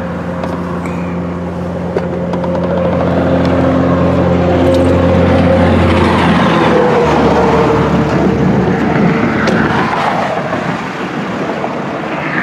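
Interstate traffic rushing past: a semi tanker truck goes by, its engine drone growing louder and then dropping in pitch as it passes about six or seven seconds in, followed by a steady rush of tyre noise.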